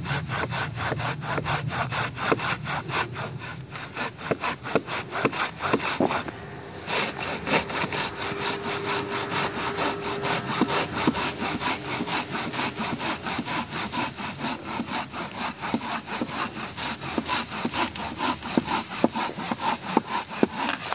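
Silky folding hand saw cutting through a log in steady push-pull strokes, about two to three a second, with a brief pause about six seconds in. The strokes stop near the end as the cut goes through. The wood seems slightly decayed, which the sawyer thinks made it cut faster.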